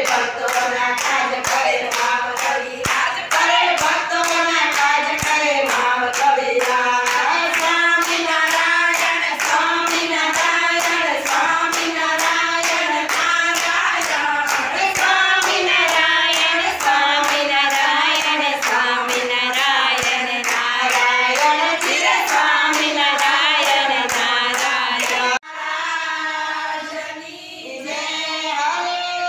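A women's group singing a Gujarati Swaminarayan kirtan (devotional song) together, one voice leading into a microphone, with steady handclaps keeping time, about two to three a second. Near the end the clapping stops abruptly while the singing goes on.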